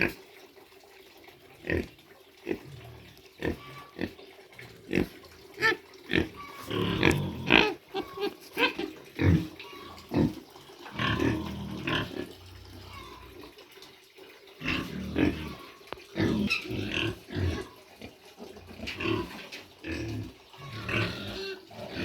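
Pigs and piglets grunting, many short irregular calls overlapping in busy flurries with quieter gaps between.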